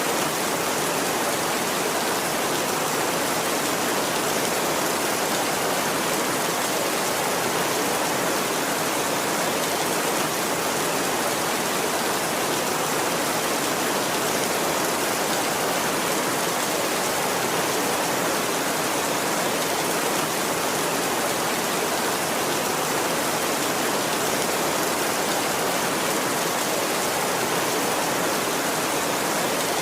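Heavy rain falling steadily on a tin roof, an even hiss with no thunder heard.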